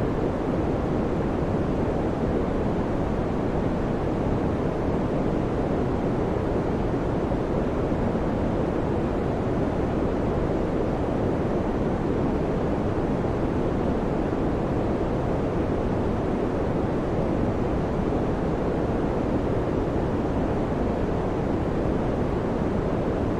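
Electric fan running, a steady low whooshing hum that never changes.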